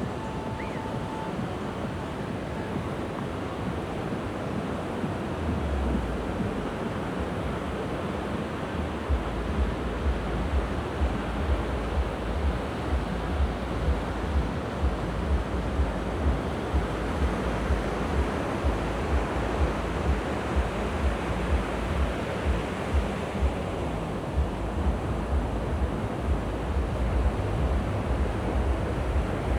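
Mediterranean waves washing onto the beach, with wind on the microphone. From about a third of the way in, low thumps come about twice a second, at the pace of walking steps.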